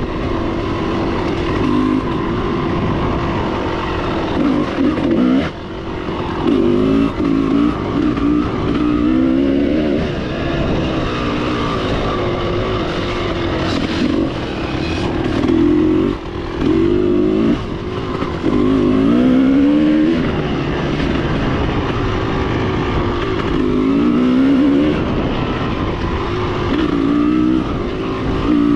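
Dirt bike engine being ridden around a dirt track, revving up and down: the pitch climbs again and again, with short drops where the throttle comes off.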